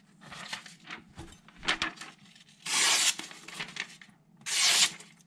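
Newspaper rustling and tearing as a freshly sharpened carbon steel knife is drawn through it, testing the edge: light rustles, then two loud slicing strokes about a second and a half apart.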